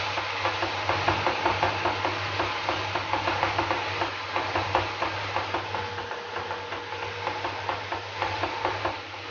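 A spatula stirring ginger-garlic paste and spice powders in hot oil in a kadai, scraping and tapping against the pan a few times a second over a steady sizzle, with a low hum underneath.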